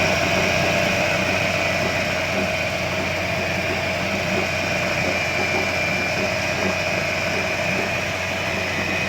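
Nissan 8 hp NS8B two-stroke outboard motor running steadily with its replaced fuel pump, a constant engine drone with a steady whine over it.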